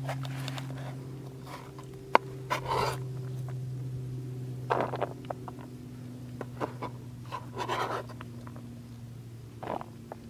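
Kitchen knife on a plastic cutting board: scattered taps from chopping onions and a few longer scrapes as the blade sweeps the chopped onion across the board. A steady low hum runs underneath and stops near the end.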